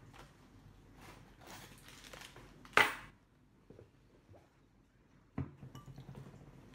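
Metal spoon scraping and clinking against a bowl between mouthfuls, with small mouth and eating noises. There is one short, loud scrape about three seconds in and a sharp knock a couple of seconds later.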